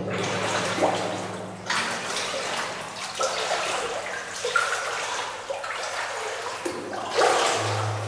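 Footsteps wading through shallow water, splashing and sloshing with each step about every second or so, over a steady low hum.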